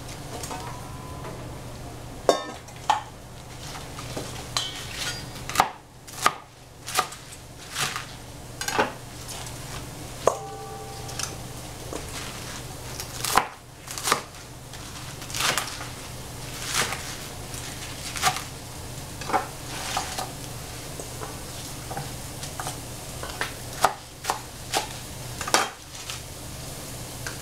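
Chef's knife chopping Chinese broccoli on a plastic cutting board: sharp knocks of the blade striking the board, about one a second and unevenly spaced, over a steady low hum.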